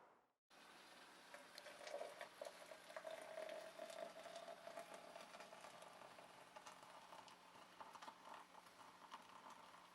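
Near silence: faint crackling over a low steady hum.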